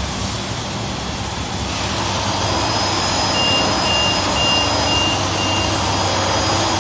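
Side-sealing plastic bag making machine running, a steady mechanical hum and clatter among other workshop machines, a little louder after about two seconds. In the middle, five short high beeps come about half a second apart.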